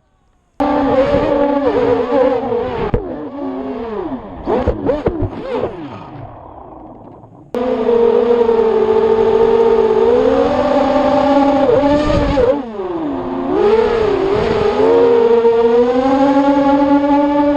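FPV racing quadcopter's brushless motors and propellers buzzing, the pitch swinging up and down with the throttle. It cuts in suddenly about half a second in, wavers and dies away over the next few seconds, then cuts back in loud and steady partway through.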